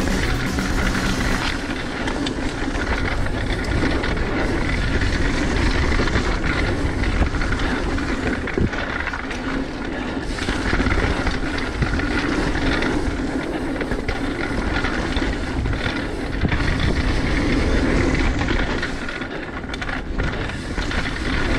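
Mountain bike riding fast down a dirt singletrack: a steady rush of tyres rolling over dirt and leaf litter, with frequent knocks and rattles from the bike over bumps and wind buffeting on the microphone.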